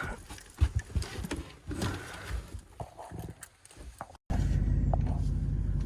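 Scattered knocks and clatter for about four seconds. Then, after an abrupt cut, a steady low rumble of a vehicle running, heard from inside the cabin.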